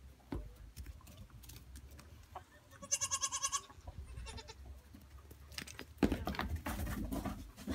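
A baby pygmy goat bleats once, a high, quavering call of about half a second, a little after three seconds in. Near the end comes a stretch of rustling and scuffling.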